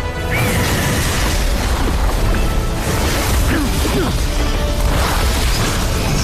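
Dramatic film score under a dense bed of fantasy battle sound effects: a sudden rush of noise about a third of a second in, then booms, crashes and sweeping whooshes over a heavy low rumble.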